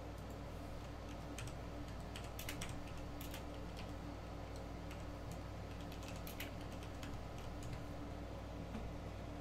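Computer keyboard keys clicking in scattered, irregular clusters, as in light typing, over a steady low hum.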